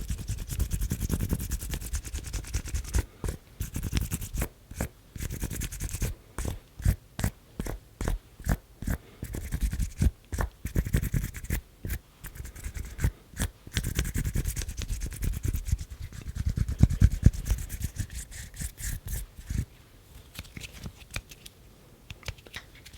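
Close-miked ASMR hand sounds made with the knuckles: a run of short, dry strokes, dense at first, then separate bursts about twice a second, then dense again, fading near the end.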